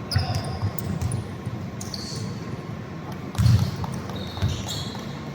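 Basketball game on an indoor court: a ball bouncing in dull thumps, the loudest about three and a half seconds in, with short high squeaks of sneakers on the floor.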